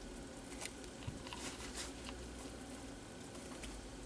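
Faint, irregular soft ticks and patter over a low, steady hiss from a pot of seasoned water heating on a stove toward the boil.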